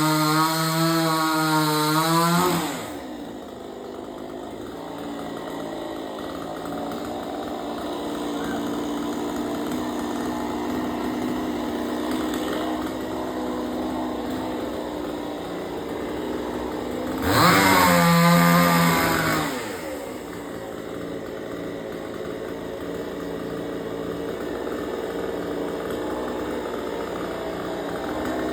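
Two-stroke chainsaw at full throttle, its pitch wavering under load, dropping to a steady idle after about two seconds. It revs up sharply again for a couple of seconds past the middle, then settles back to idle.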